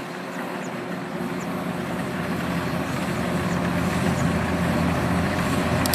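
Kubota DC93 combine harvester running steadily while cutting ripe rice, its engine hum growing louder as the machine comes closer.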